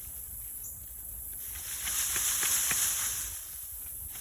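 A steady high hiss of outdoor ambience, with a few faint clicks and rustles about halfway through as it swells slightly.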